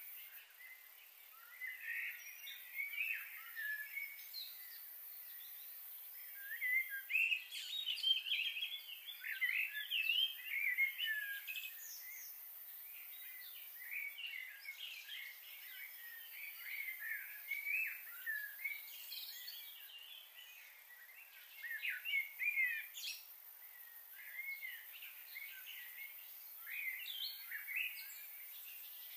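Small birds chirping and twittering in quick, short calls that come in busy clusters with brief lulls, over a steady faint hiss.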